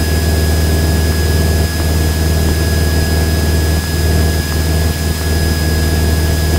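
Cessna 172N Skyhawk's four-cylinder Lycoming engine and propeller droning steadily in cruise, with a thin steady high whine over it.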